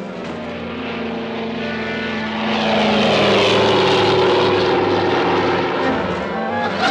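Propeller airplane flying low overhead, its engine growing much louder about two and a half seconds in, with the pitch falling as it passes.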